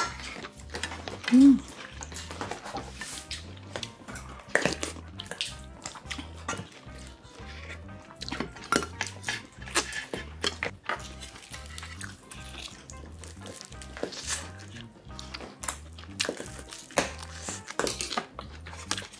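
Chopsticks and a spoon clinking and scraping against metal bowls and a steel tray during eating, in many short clicks, over background music with a steady beat.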